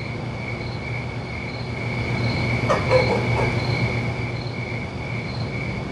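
Crickets chirping steadily, a high pulsing trill repeating about twice a second, over a low steady hum. A brief louder rattle or creak comes about halfway through.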